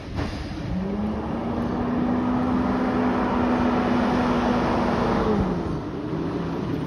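Garbage truck's diesel engine pulling away: it revs up about a second in, holds a steady pitch for several seconds, then eases off. A short sharp knock comes right at the start.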